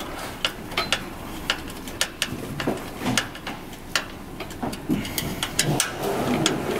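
Sharp, irregular metal clicks and ticks, a few a second, from a hand tool working the bolts of a bicycle disc brake caliper as they are tightened.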